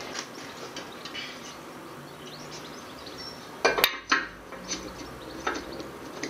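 Metal parts clinking and knocking against a cylinder liner in a bare engine block, with a few light clicks and a sharp cluster of knocks a little before the midpoint.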